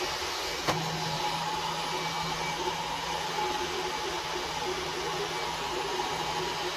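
Jets Platinum robot vacuum running, with a steady whirr of its suction fan. A click comes about a second in, after which a low steady hum joins.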